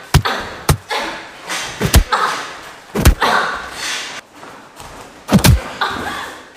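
Punches landing in a sparring bout: a string of about six sharp thuds, the heaviest about two, three and five and a half seconds in, with hissy noise between the blows.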